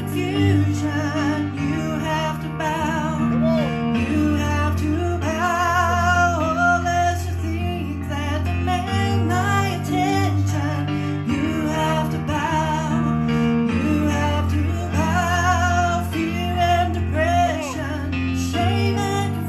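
A woman singing a church song with vibrato into a microphone, accompanied by sustained chords on an electronic keyboard.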